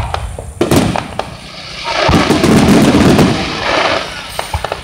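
Aerial fireworks shells bursting: several sharp bangs in the first second or so, then a dense spell of rapid crackling about two seconds in, with scattered pops near the end.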